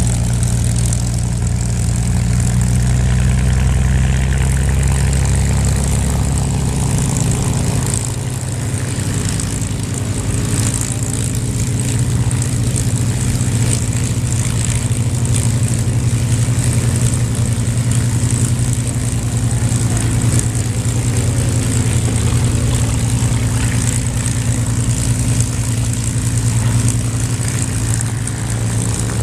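Piston-engined warbird fighters taxiing at low power, led by an F4U Corsair's big radial engine and propeller running close by, with the engines of a P-51 Mustang and a P-38 Lightning behind it. The low engine drone is steady, and its deepest part drops away about seven seconds in.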